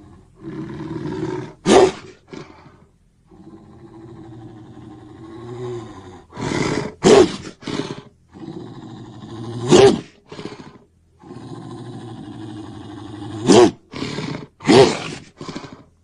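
Creature roar sound effects: a series of low, rumbling growls, each building to a short, sharp, loud roar, about five in all with brief pauses between.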